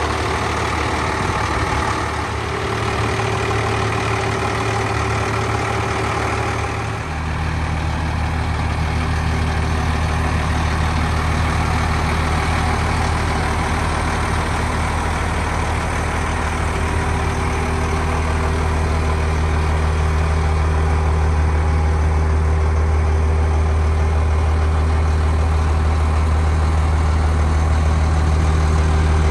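International DT466 inline-six diesel of a 1997 International 4700 truck idling steadily. Its tone changes abruptly about seven seconds in.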